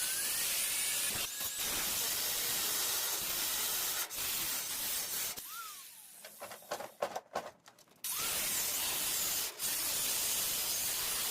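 Steady hissing noise that drops away for a moment three times. In a quieter stretch in the middle there are a few sharp clicks.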